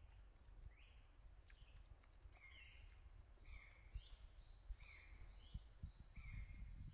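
Faint, repeated high chirping calls, about one or two a second, some sweeping upward, over a low rumble with a few soft thumps.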